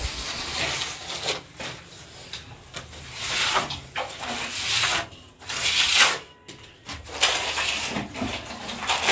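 A hand plastering tool scraping wet plaster across a wall in a series of strokes, each about half a second to a second long, with short pauses between them.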